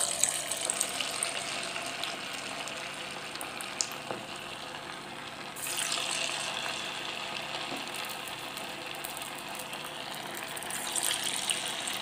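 Soya and spinach koftas deep-frying in hot oil in a small saucepan: a dense crackling sizzle that grows louder about six seconds in.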